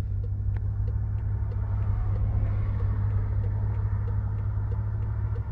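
BMW M5 F10's twin-turbo V8 running steadily at low revs, an even deep drone heard from inside the cabin, as the car sits waiting for a launch-control start.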